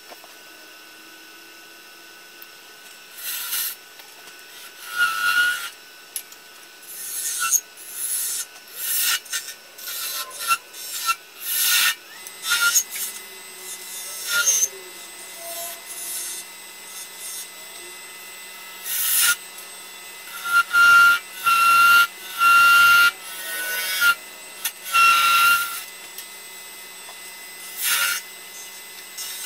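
A turning tool cutting the stem of a spalted beech goblet spinning on a Nova wood lathe. It makes a string of separate scraping cuts, each a second or two long, over the lathe's steady running hum. The loudest cuts come in the last third, some with a thin whistle.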